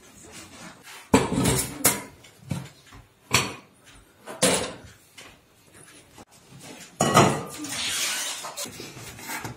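Metal kitchenware being handled on a gas stove: a wire grate rack, an enamel kettle and an aluminium pan knocking and clanking as they are moved and set down, several separate knocks. About seven seconds in there is a louder clank followed by a hiss lasting about two seconds.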